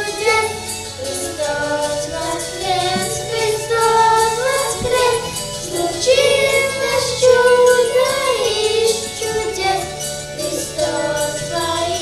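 Children's choir singing a Russian Easter song together over an instrumental accompaniment with a steady bass line.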